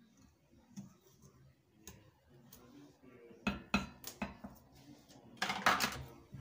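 Handling of a glass mixing bowl of dry puff puff flour mix: a few sharp knocks and clinks about three and a half seconds in, then a louder rough scraping rustle near the end.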